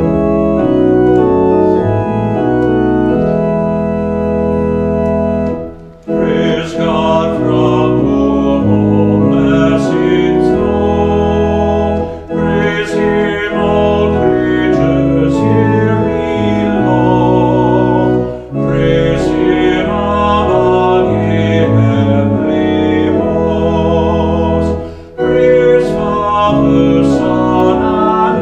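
Two-manual church organ playing sustained chords, alone for the first six seconds or so. A man's voice then sings along, the organist himself, in phrases with short breaks about every six seconds.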